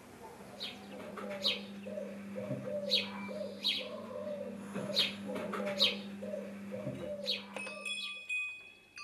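Small birds chirping in short, sharp, repeated calls over a steady low hum. Near the end, bell-like chime tones start ringing.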